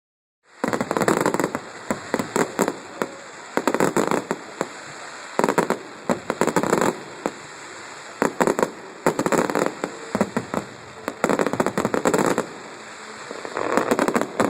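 Fireworks going off: rapid crackling volleys of sharp pops and bangs, in bursts a second or two long, one after another.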